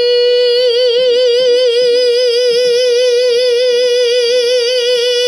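A singer's voice holding one long, unbroken sung note, steady at first and then wavering in an even vibrato from about half a second in.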